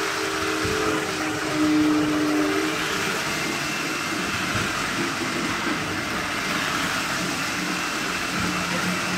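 Lionel O-gauge toy trains, a postwar 634 diesel and an 1061 steam engine, running on three-rail tubular track: a steady whir of the motors and rattle of the wheels on the tin rails. A held tone of several pitches sounds over it for about the first three seconds, then stops.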